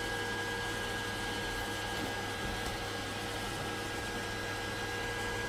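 Creality K2 Plus 3D printer running a manual extrude: a steady whir of its fans with a steady motor whine as the extruder pushes filament through the hot nozzle.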